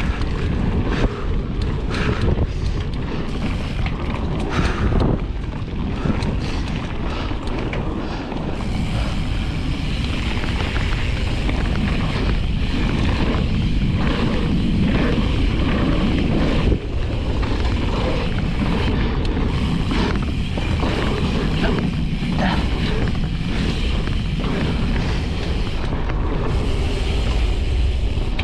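2021 Specialized Status 160 mountain bike descending a dirt trail at speed: wind rushing over the GoPro microphone and tyre noise on dirt, with the bike knocking and rattling over bumps. The knocks are frequent for the first third, then give way to a steadier rush.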